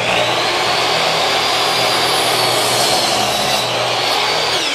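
Hitachi compact miter saw running at full speed with a high motor whine while its blade is lowered through a pine 2x4. Near the end the trigger is released and the whine starts to fall as the blade spins down.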